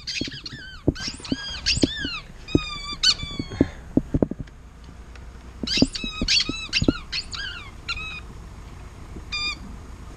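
A dog chewing a rubber squeaky toy: quick runs of high squeaks in about five bursts, with a longer pause in the middle.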